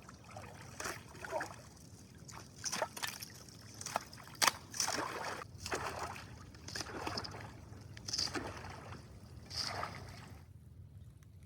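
Cold lake water sloshing and splashing irregularly as a person wades in for a winter dip, with one sharper splash about halfway through.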